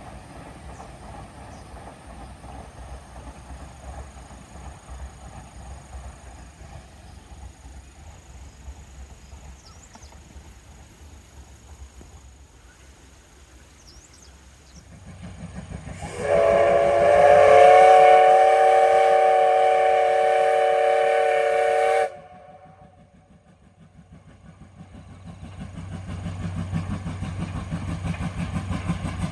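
Steam locomotive's whistle blown in one long blast of about six seconds, several tones sounding at once, sliding up slightly as it opens and cutting off sharply. Low train rumble runs under it and swells again near the end.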